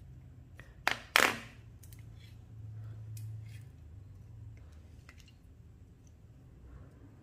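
Handling noise from a plastic water-pump pressure switch: two sharp clacks about a second in, the second the louder, then a few faint taps and clicks.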